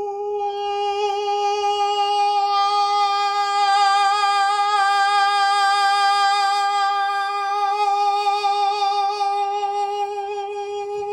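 A man sings one long note at a steady pitch, starting round and soft in head voice, turning sharper and brighter a couple of seconds in as his vocal cords close more firmly (crico-arytenoid lateralis), then easing back to the softer head-voice sound near the end.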